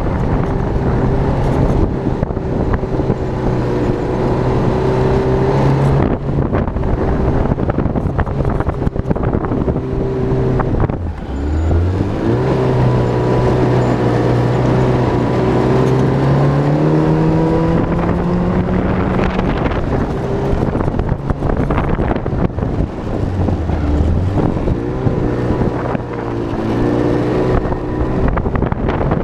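Yamaha snowmobile engine running under way. Its pitch drops sharply about eleven seconds in as it slows, then climbs steadily for several seconds as it speeds up again, with another brief dip later on.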